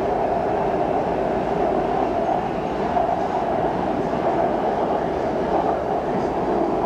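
Steady running noise heard inside a BTS SkyTrain carriage travelling between stations, an even rumble and rush of the moving train.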